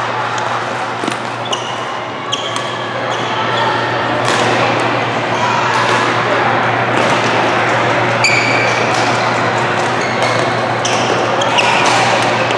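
Badminton rally in a large sports hall: sharp racket strikes on the shuttlecock and several short sneaker squeaks on the court floor, over the constant hubbub of voices and play from the hall.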